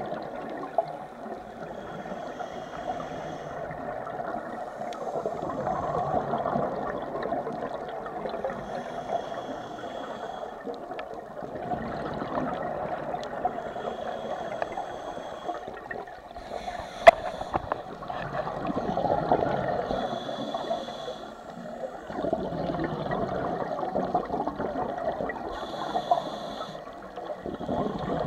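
Scuba diver breathing through a regulator underwater: hissing inhalations alternating with rushes of bubbling exhaled air, in slow cycles every several seconds. One sharp click about 17 seconds in.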